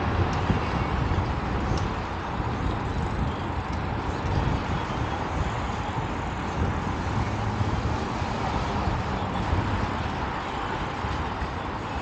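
Steady city ambience dominated by the low hum of road traffic.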